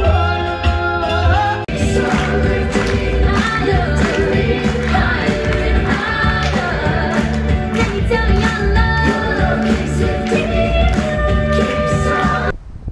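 Live stage-show music with singers, from a theatre show; about two seconds in it changes abruptly to another song, sung by a group of male and female singers over a backing with a steady beat. The music cuts off suddenly just before the end.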